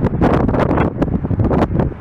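Strong wind buffeting the microphone in irregular gusts, easing just before the end.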